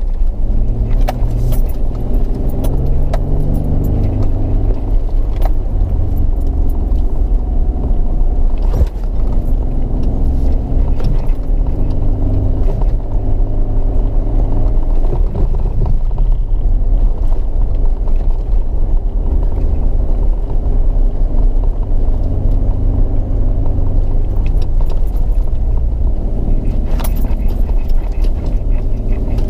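Off-road 4x4 vehicle driving slowly over sand and rock: its engine runs under load with a heavy low rumble, the pitch rising and falling as the revs change. Scattered rattles and knocks come from the vehicle as it bumps over the rough track.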